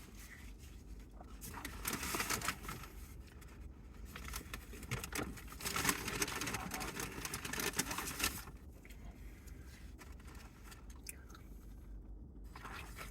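Paper fast-food packaging rustling and crinkling as it is handled, in two stretches: briefly about two seconds in, then again for about three seconds from around five seconds in.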